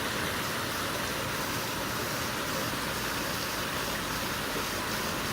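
Steady rushing of flowing creek water, an even hiss with no breaks.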